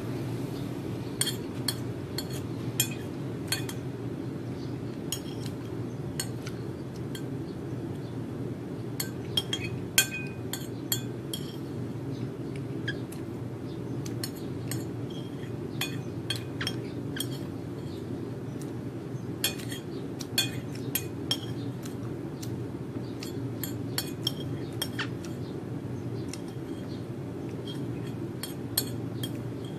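Metal spoon and fork clinking and scraping against a ceramic plate while eating, in scattered short clinks, some in quick runs, over a steady low hum.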